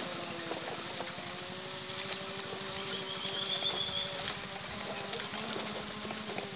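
A small vehicle's motor running steadily while it rides over a bumpy dirt track, with many small knocks and rattles. A short high chirp, like a bird, is heard about halfway through.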